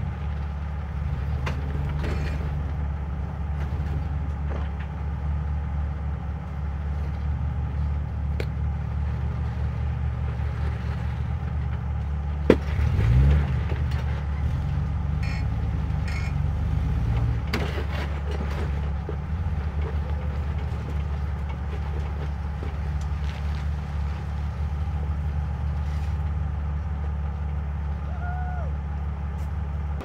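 Off-road vehicle engine running at low speed while crawling up a trail. A sharp knock comes about 12 seconds in, followed at once by a brief rev, with scattered clicks throughout.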